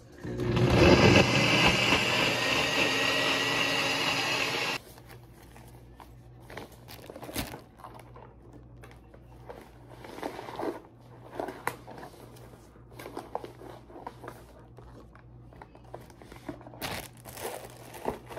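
A NutriBullet blender runs for about four and a half seconds, blending chopped cucumber, pineapple, lemon and ginger with water, then cuts off suddenly. After that come quieter crinkling and rustling sounds as a plastic zip-top bag and a fabric lunch bag are handled.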